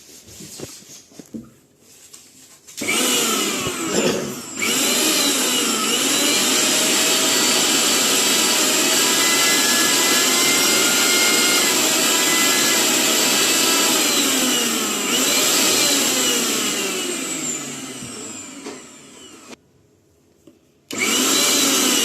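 Sansui Colossus 1000-watt mixer grinder motor starting up after a few clicks, stepping up in speed about a second later, then running with a steady high whine. Its pitch falls as it winds down after being switched off, and it starts again near the end. The motor sound is 'a little bit high', which comes with the 1000-watt motor.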